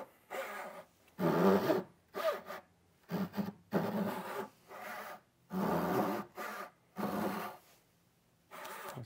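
Handsaw cutting through a wooden board in repeated back-and-forth strokes, about one a second, with a longer pause near the end before one last stroke.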